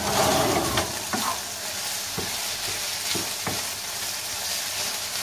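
Minced meat, tomato paste and green peppers sizzling in a frying pan while a wooden spatula stirs them, with a steady sizzle and a few short scrapes and knocks of the spatula against the pan.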